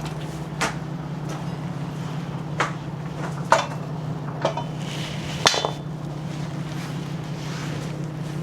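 About five sharp metallic clinks and knocks, like hand tools being picked up and set down, over a steady low hum.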